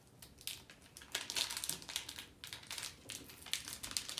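Plastic wrapper of a trading-card pack crinkling and crackling in irregular bursts as hands work it open.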